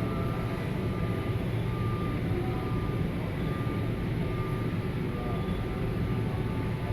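Steady low rumble of a large store's background noise, with faint short tones coming and going above it.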